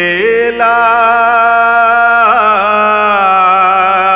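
Devotional chalisa singing: one long sung note held without a break, with a small wavering ornament about two seconds in.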